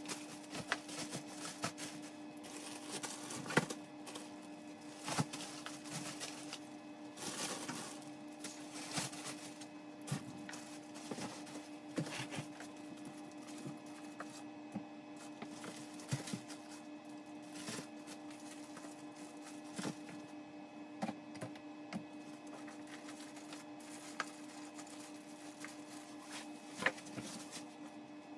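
Plastic-bagged products being handled and packed into a cardboard shipping box: plastic crinkling and scattered soft knocks and taps, over a steady hum.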